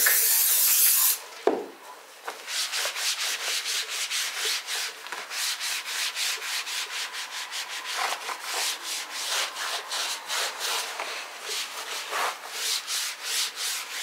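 A short hiss of Plak aerosol spray, which stops about a second in, then a microfibre cloth rubbed over a car floor mat in quick, even back-and-forth strokes to work the spray in.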